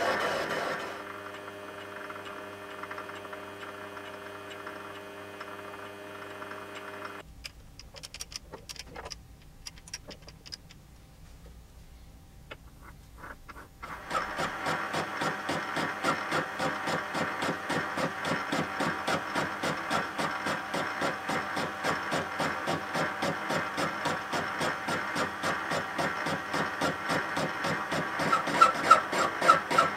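Metal lathe turning a 1045 steel shaft, its motor running with a steady hum. Partway through it goes quieter with a few scattered clicks. It then turns louder, with an even, repeating pulse to the running.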